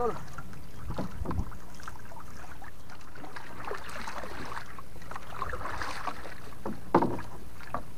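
Steady wind and water noise around a small fishing boat, with scattered light knocks and one sharper knock about seven seconds in.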